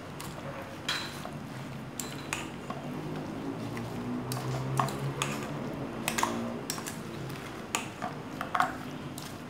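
Metal spoon clinking and scraping irregularly against a stainless steel mixing bowl as chopped fruit is stirred through cream.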